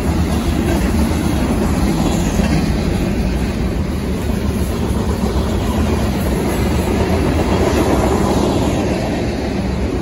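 Tank cars and covered hoppers of a long freight train rolling past at track speed: a steady, loud noise of steel wheels on rail.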